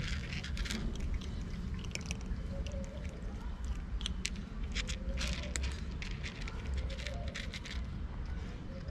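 Cats crunching dry kibble: quick, irregular crackling of chewing.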